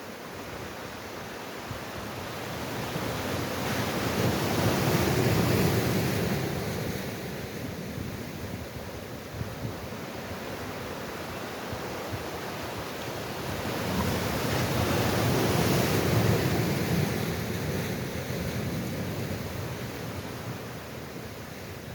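Sea waves washing in, two slow surges of rushing water that swell up and die away, the first peaking about five seconds in and the second about sixteen seconds in.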